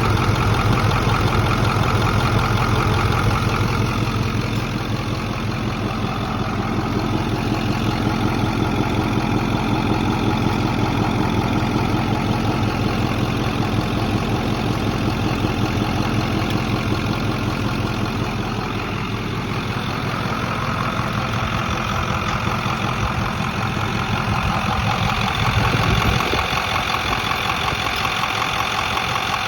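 Ford F-250 engine idling, with a clicking that comes and goes, like two spoons clicking together. Its source is unknown and the truck otherwise runs fine. Near the end the deep rumble drops away and the sound turns thinner.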